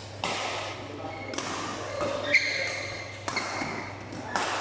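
Badminton rally: rackets striking a shuttlecock about once a second, five sharp hits in all, each followed by a short hiss, the loudest one about halfway through. The hall's echo carries on under the hits.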